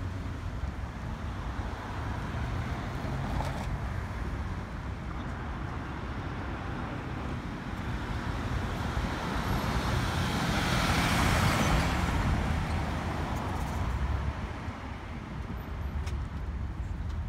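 Street traffic: a steady low rumble, with one vehicle passing close, its tyre noise swelling to a peak about two-thirds of the way through and then fading.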